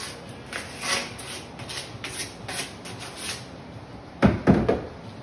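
Sandpaper rubbing the end of a PVC pipe in quick repeated strokes, scouring it clean before gluing. About four seconds in, two loud knocks as the plastic pipe is set down on a wooden counter.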